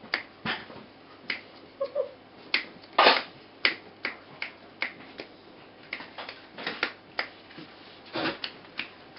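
Fingers snapping over and over, about two snaps a second at irregular spacing, to call four-week-old Border terrier puppies, with a brief puppy squeak about two seconds in.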